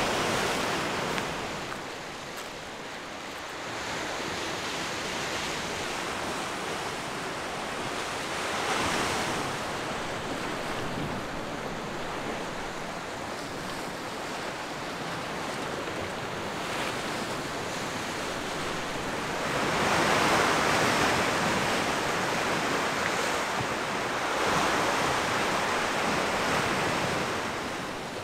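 Lake Superior waves breaking and washing over a rocky boulder shore, surging louder a few times and strongest about two-thirds of the way through, with wind over the microphone.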